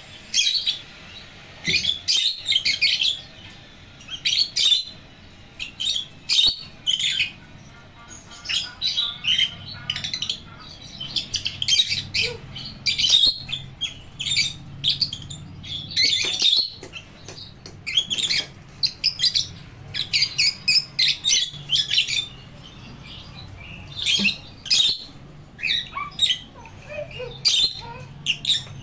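Pet cockatiel and African lovebirds chirping: clusters of short, sharp, high chirps and squawks come every second or so, with brief pauses between them.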